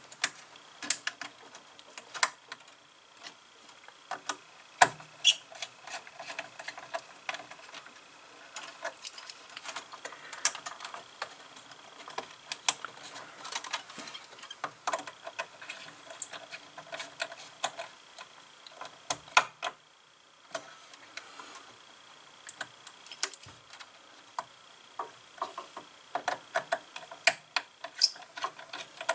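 Irregular small clicks and ticks of a precision screwdriver turning terminal screws and wires being pushed into screw terminals on a relay board.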